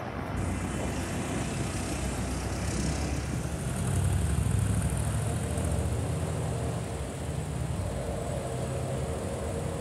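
Lamborghini Urus's twin-turbocharged V8 idling with a steady low rumble, swelling briefly about four seconds in.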